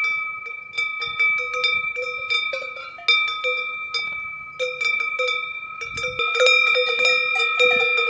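Cowbells on a grazing herd of cows, clanking and ringing irregularly as the animals move their heads. Several bells overlap, each clank leaving a ringing tone.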